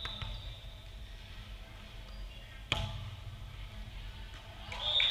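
A referee's whistle blast cuts off right at the start, a volleyball is struck once with a sharp smack about two and a half seconds in, and a second whistle blast begins near the end, over the low hum and murmur of a gym.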